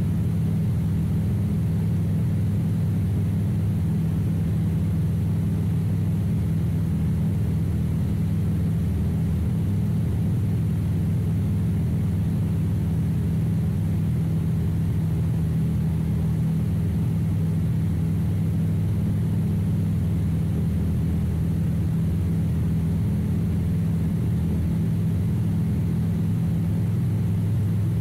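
Light high-wing airplane's piston engine and propeller running steadily in level flight, a constant low drone heard from on board.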